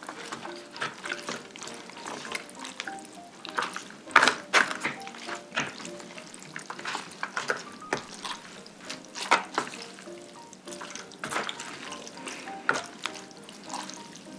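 Wooden chopsticks mixing makguksu noodles through sauce in a plastic takeout tray: wet, sticky stirring with sharp clicks of the chopsticks against the plastic, loudest about four seconds in and again around nine seconds. Light background music underneath.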